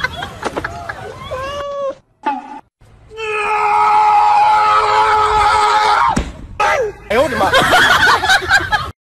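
A long, steady scream-like cry held for about three seconds in the middle, with shorter rising and falling cries and exclamations before and after it.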